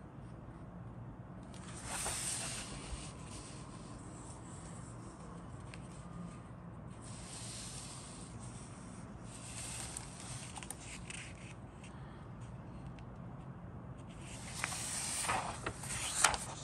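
Paper instruction booklet being handled and its pages turned, rustling and sliding in several bursts, the loudest with a few sharp crinkles near the end, over a steady low hum.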